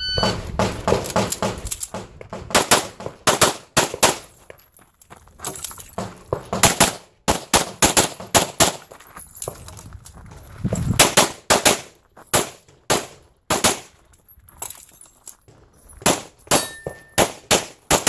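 An electronic shot timer beeps once to start the stage, then a pistol fires strings of shots in quick succession, with short breaks between the strings.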